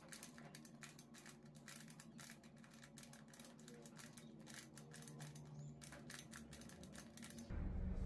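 Faint, rapid clicking of a Skewb Diamond twisty puzzle's plastic pieces as it is turned over and over to scramble it.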